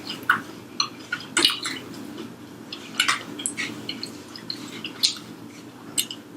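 Close-miked chewing of fried chicken: irregular short wet smacks and clicks of mouth and food, several a second.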